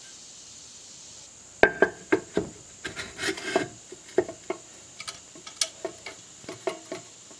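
Cast aluminium sump cover of a Briggs & Stratton 18.5 HP Intek engine being handled and fitted onto the crankcase: a string of irregular metal clunks, taps and short scrapes, starting about a second and a half in.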